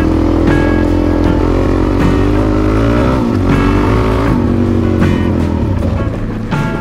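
Dirt bike engine running under way on a dirt trail, its revs rising and falling a few times around the middle, with background music mixed in.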